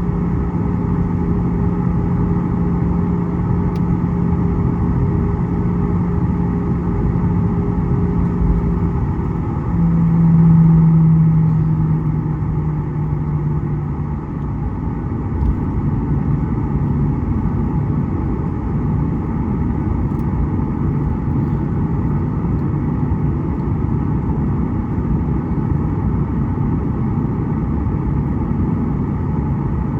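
Steady engine and cabin noise of a Boeing 737 heard from inside the cabin, a constant rumble with a low hum. The hum briefly gets louder about ten seconds in, then fades out a few seconds later.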